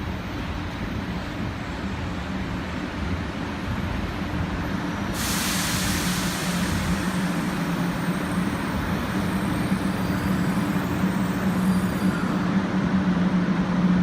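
500 series Shinkansen train at the platform: a steady hum that grows slowly louder, with a sudden sharp hiss of released air about five seconds in that fades over a couple of seconds.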